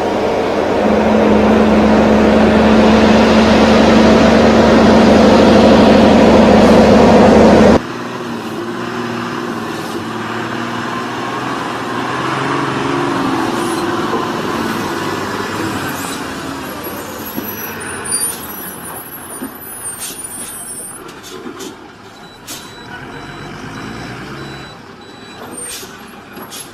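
Heavy logging truck engine running loud and steady with a deep drone, cutting off abruptly about eight seconds in. A quieter truck engine follows, with pitch shifting as it works, and scattered knocks, clanks and high squeals in the second half.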